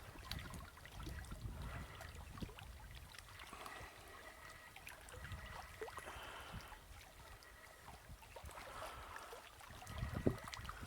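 Small lake waves lapping and gurgling against the shore, with low gusts of wind rumbling on the microphone.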